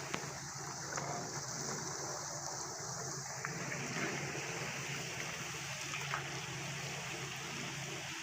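Chicken pops deep-frying in hot oil in a karahi: a steady sizzle with a few small crackles.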